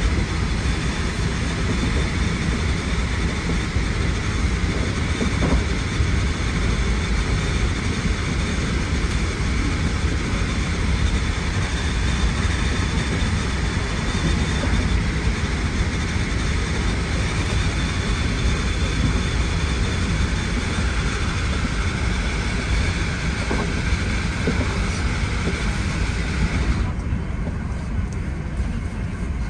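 Hankyu 1300 series electric train running steadily, heard from the driver's cab: a continuous low rumble of wheels on rail with a faint steady whine. Near the end the higher hiss and whine drop away suddenly, leaving the low rumble.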